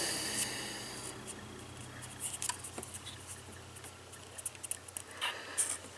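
Faint handling noises: light clicks, taps and rubs of a small speaker driver being handled against the jukebox's plastic housing, over a low steady hum.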